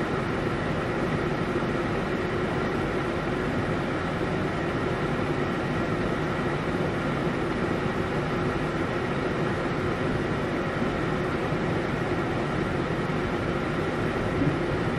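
Fast-flowing floodwater and heavy rain making a steady rushing noise.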